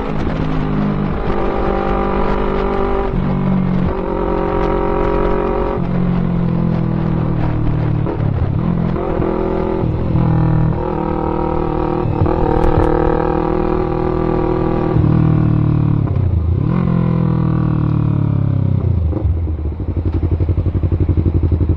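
Yamaha MT-03 motorcycle engine running through a Pure Sound full-system aftermarket exhaust, revving under way. Its note drops abruptly at each of several gear changes, and near the end it settles to a low, evenly pulsing beat at low revs.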